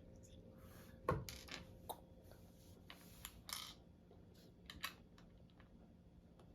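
Small plastic building bricks clicking and rattling as loose pieces are handled and sorted, a few sharp clicks with the loudest about a second in, over a faint steady hum.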